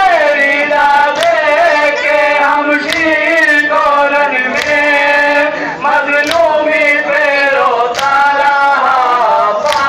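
Male voices chanting a Muharram lament (noha) in a slow, drawn-out melody, with a sharp strike in unison about every second and three-quarters, the beat of the mourners' matam.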